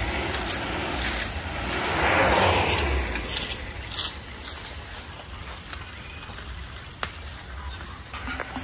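Insects droning steadily at a high pitch. A brief swell of rushing noise comes about two seconds in, and a single sharp click near the end.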